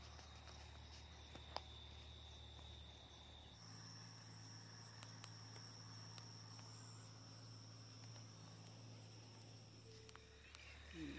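Faint, steady high-pitched trilling of crickets, which switches abruptly to a higher-pitched trill about three and a half seconds in.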